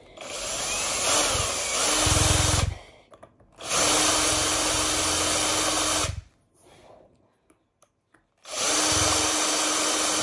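Cordless drill running with a twist bit as it slowly bores a hole into a thick emu eggshell. It runs in three steady bursts of two to three seconds with short pauses between them. The first burst builds up gradually and the last runs on past the end.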